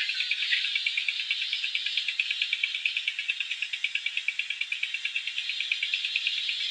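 A chirping insect: a steady, fast trill of even pulses, about eight a second.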